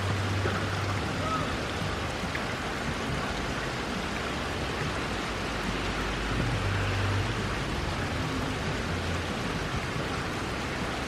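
Steady rain falling on wet pavement and grass: an even hiss of drops. A low hum comes and goes underneath it.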